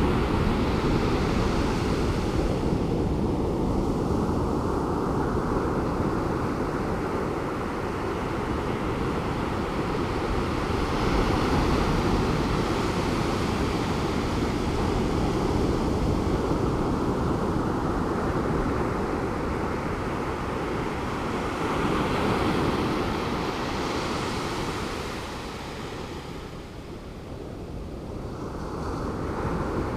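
Pacific Ocean surf breaking and washing up the beach: a steady rush that swells roughly every ten seconds as each wave comes in. It eases noticeably just before the end, then builds again.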